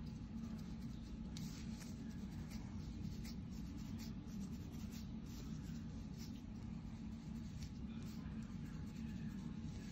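Scalp scratching: a thin pointed tool scraping dandruff flakes off a flaky scalp in short, irregular strokes, over a steady low hum.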